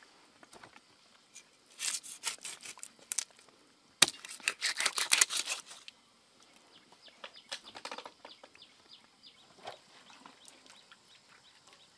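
Two short bouts of quick rasping strokes, the second opening with a sharp knock, then faint scattered ticks.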